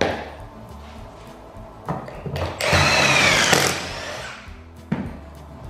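Cordless drill boring a pocket hole into a plywood panel through a Kreg pocket-hole jig with its stepped, depth-stopped bit: one burst of about a second, about two and a half seconds in, its whine bending in pitch as the bit cuts. Background music underneath, with a short knock at the start.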